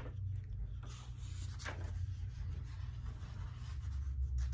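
Paper rustling as the pages of a picture book are handled and turned, with a short rustle about a second and a half in. A low steady hum runs underneath.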